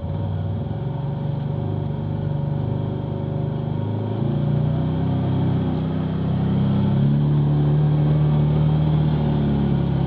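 Arctic Cat Wildcat side-by-side's engine running under load, pulling in low range with four-wheel drive along a rutted track. The revs rise about halfway through and climb a little more near the end.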